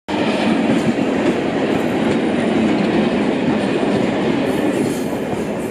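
Freight train of container wagons passing close by on the near track: a dense, steady rumble and clatter of wheels on rail that eases slightly as the last wagons go by near the end.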